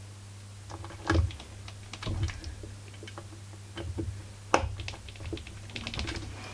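Scattered light clicks and taps of small metal parts and hand tools being handled at a workbench during chainsaw repair, with a sharper knock about four and a half seconds in, over a steady low hum.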